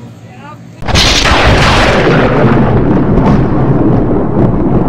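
A sudden loud boom about a second in, followed by a steady, loud rumble: an explosion- or thunder-like sound effect for a closing logo.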